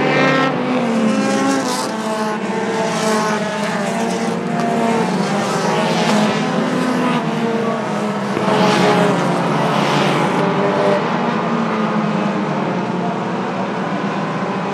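A pack of pure stock race cars racing, several engines heard at once, their pitches rising and falling as cars pass, with louder swells a few times as cars go by close.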